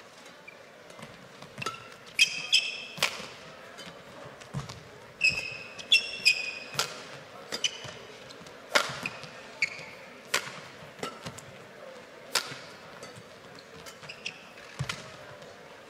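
A badminton rally: sharp cracks of rackets striking a feather shuttlecock every second or two, with short, high squeaks of court shoes on the floor.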